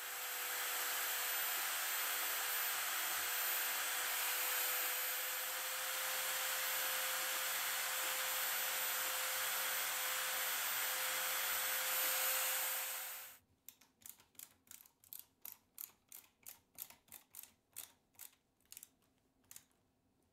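Homemade drill press running steadily with a fixed whine while drilling a small hole in an aluminium strip; it stops abruptly about two-thirds of the way through. Then comes a run of sharp clicks, about three a second, as screws are driven into the strip with a hand screwdriver.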